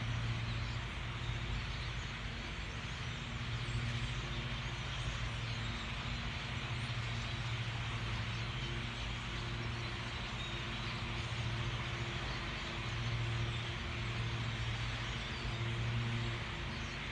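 A steady low mechanical hum, like an engine running, under a constant even hiss.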